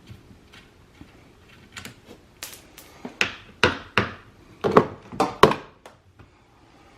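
A series of irregular sharp knocks and clunks, about eight in all, from hand tools, a 10 mm socket, working on the mirror's mounting bolts inside the door.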